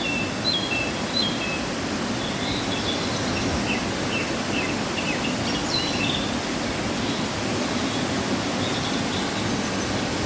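Waterfall running full after rain: a steady, even rush of falling water. Birds chirp over it with short, repeated notes, busiest in the first half.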